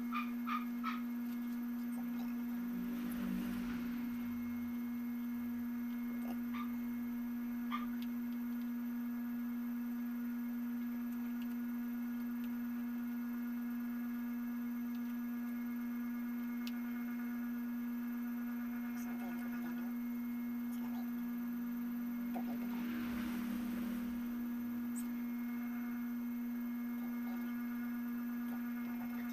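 A steady hum held at one low pitch, with soft brief rustles about three seconds in and again near the end.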